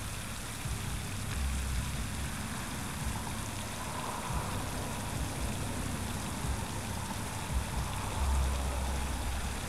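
Steady rushing noise of wind on the microphone, with low rumbling gusts about a second and a half in and again near the end.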